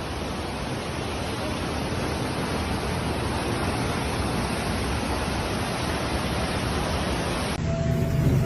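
Steady rushing noise of water. It cuts off abruptly about a second before the end, giving way to a low hum with a steady tone.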